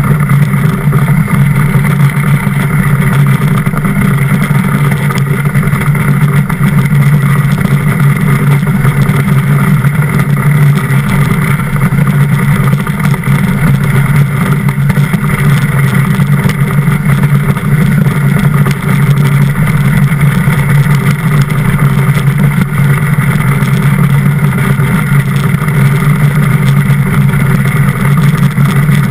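DN iceboat running fast over ice: a loud, steady rumble and hiss from the steel runners on the ice and the wind, picked up by a camera fixed to the hull.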